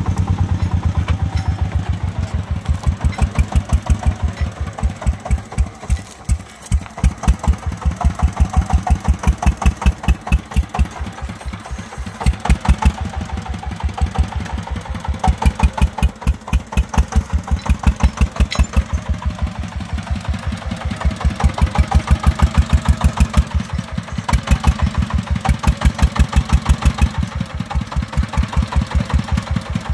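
Single-cylinder diesel engine of a three-wheeled công nông farm truck chugging with rapid, even thumps as the truck drives over rough ground loaded with soil. The chug grows louder and softer in turns.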